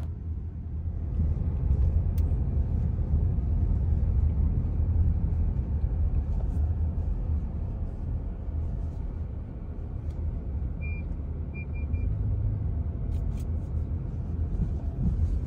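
Car driving, heard from inside the cabin: a steady low rumble of road and engine noise. A few short, faint high beeps come about eleven seconds in.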